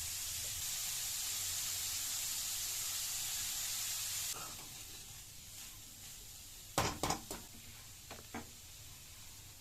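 Food frying in hot oil with a steady sizzle that cuts off suddenly a little over four seconds in, followed by a quick cluster of utensil clinks and two fainter knocks, as of a spoon against the pan.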